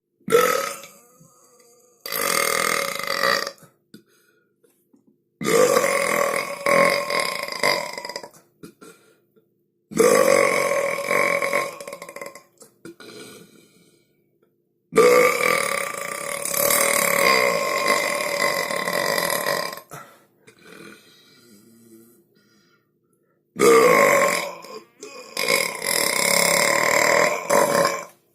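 A string of long, loud belches, about seven in all, one after another with short silent gaps between them; the longest run for several seconds each.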